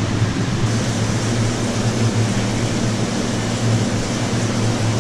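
Steady low machinery hum with an even hiss over it, typical of the refrigeration and ventilation equipment running in a seafood market with refrigerated display counters and live lobster tanks.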